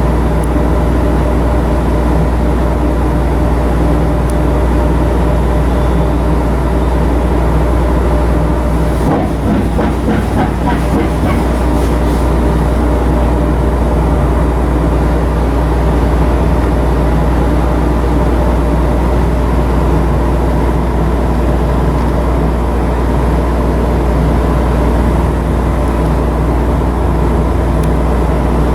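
Coastal cargo ship's diesel machinery running steadily at sea, heard aboard as a loud, even drone with a deep rumble. A brief rustling and clicking comes about nine seconds in.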